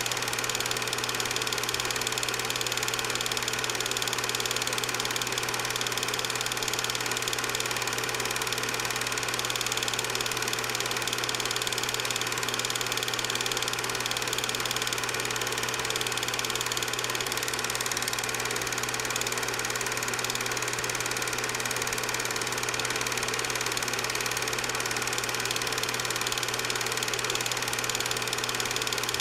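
8mm film projector running: a steady motor whir with the film mechanism's clatter, level and unchanging.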